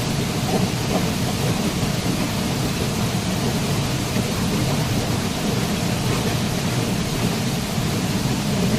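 Waterfall: a steady rush of falling water with a deep, even rumble.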